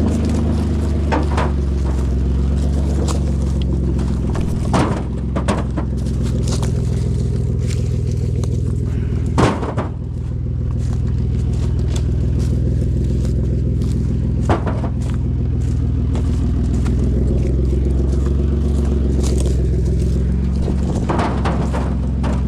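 Car engine running steadily while the car drives slowly over a rough dirt road, with scattered knocks and rattles from bumps and stones.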